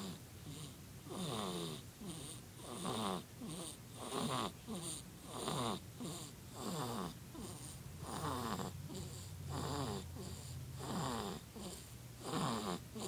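A sleeper snoring steadily: about nine snores, roughly one every second and a half, each falling in pitch.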